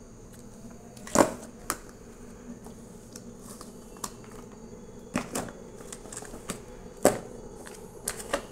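Plastic food pouches being handled: several short, sharp crinkles and taps as the packets are turned over and moved about, the loudest a little over a second in and about seven seconds in.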